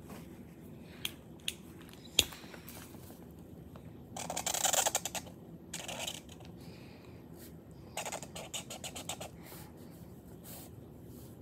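Felt-tip marker scratching across sketchbook paper in quick back-and-forth colouring strokes, in a burst about four seconds in, a short one near six seconds and another about eight seconds in. A few sharp clicks come earlier, the loudest about two seconds in.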